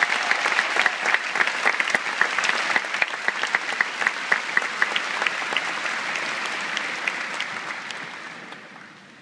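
Large audience applauding, with sharp single claps standing out close by. The applause fades away near the end.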